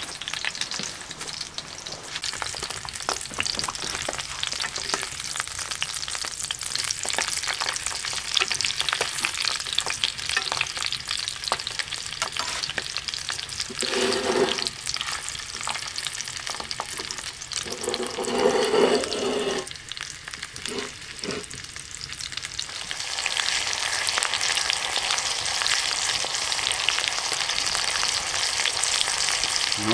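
Pork kupaty sausages sizzling and crackling in hot oil in a frying pan on a brick stove. There are a couple of brief duller noises around the middle, and the sizzle grows louder and brighter about two-thirds of the way through.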